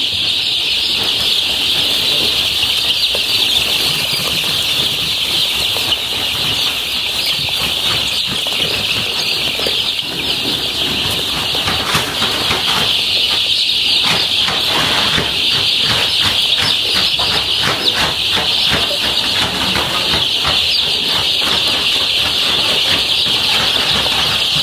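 A large flock of week-old chicks peeping all at once, a dense, continuous high-pitched chorus. About halfway through, a run of quick rustling taps comes in under the peeping for several seconds.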